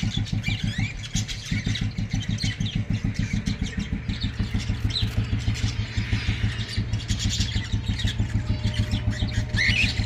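A small engine running with a fast, even low throb of about eight beats a second, a deeper steady hum joining about four seconds in; faint bird chirps above it.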